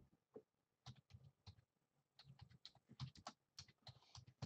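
Typing on a computer keyboard: irregular runs of soft key clicks, several to the second.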